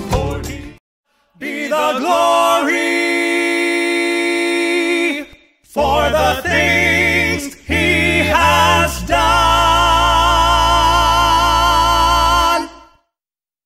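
Male Southern gospel quartet singing in close harmony, in a few short excerpts separated by abrupt cuts. The last excerpt holds a chord for about four seconds, with the bass singer sustaining a low A1 chest note beneath it before it cuts off.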